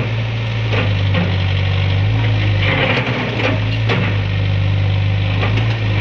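Case backhoe loader's diesel engine running steadily under load as its boom breaks into a brick building, with scattered sharp knocks and crunches of masonry giving way, several close together in the middle.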